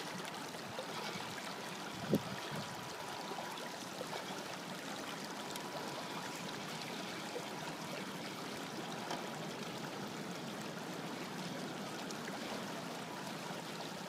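Shallow creek water running over rocks, a steady rushing, with a single knock about two seconds in.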